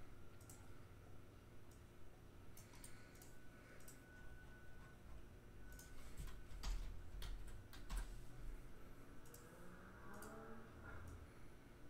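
Faint, irregular clicks of a computer mouse and keyboard, a few at a time with pauses between. A faint rising tone comes in near the end.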